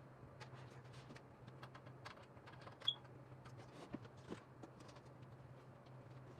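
Faint scattered clicks and taps of a computer keyboard and its cable being handled and plugged into a PC, with one sharper click about three seconds in. A steady low hum runs underneath.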